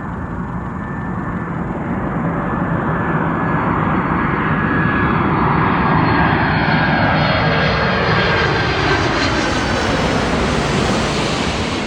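Four-engined Boeing 747-400 jet airliner passing on its landing approach: a loud engine roar that swells to a peak about halfway through, with a sweeping whoosh that slides down in pitch as it goes by, then eases slightly.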